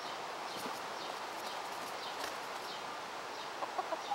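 A chicken giving a few short clucks near the end, over a steady faint background hiss.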